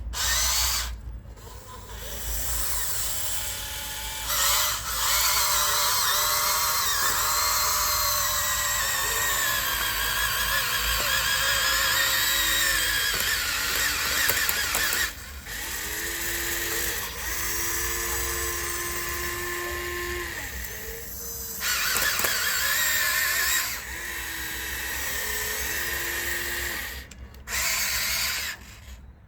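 Small electric motors and gearboxes of radio-controlled construction models whirring. The whine stops and restarts and steps up and down in pitch as the controls are worked, with short gaps about a second, fifteen seconds, twenty-one seconds and twenty-seven seconds in.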